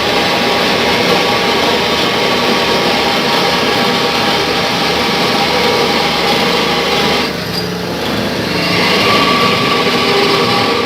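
Small lathe running steadily with a constant whine. About seven seconds in, the higher part of the sound drops away for a second or so, then comes back.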